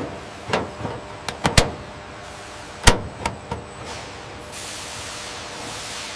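A series of sharp knocks and clicks, two of them much louder, followed by a steady hiss.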